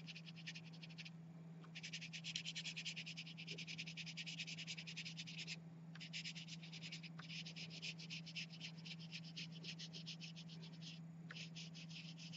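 Oil pastel scraping on paper in rapid short back-and-forth coloring strokes, with brief pauses about a second in, around halfway and near the end. A faint steady low hum underneath.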